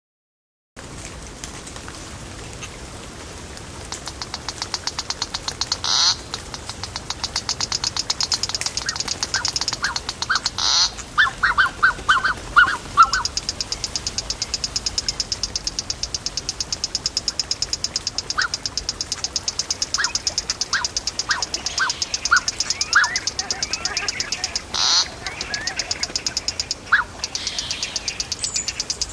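Wetland field recording: a steady, fast, evenly pulsing high trill of stridulating animals, with runs of short lower calls and a few sharp clicks. It starts about a second in.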